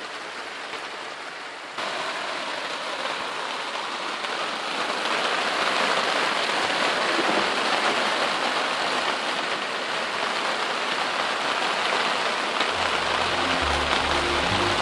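Rain falling steadily on a sailboat's cockpit and canvas bimini top, a dense hiss. It is duller at first from inside the cabin and louder from about two seconds in, out in the open cockpit. Music with a bass line comes in near the end.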